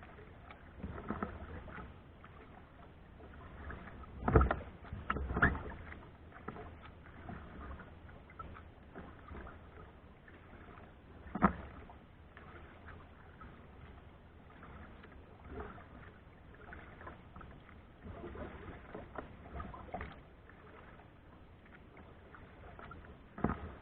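Kayak paddling: paddle strokes splashing in the water, with occasional sharper knocks a few seconds apart over a low steady background.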